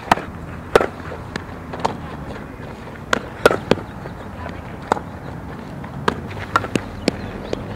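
Scattered sharp pops and knocks of a softball being hit and smacking into leather fielding gloves during infield drills, over a steady outdoor background noise.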